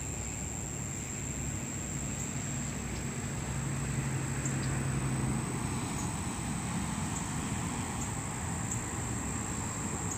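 Outdoor ambience: a steady high, thin insect drone over a low hum, with a low engine-like tone that swells about a quarter of the way in and fades out a little past the middle.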